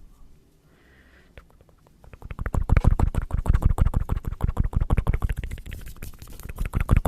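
Close-miked ASMR hand trigger: a fast, dense run of scratchy clicks right at the microphone, starting about two seconds in, with a short lull near six seconds.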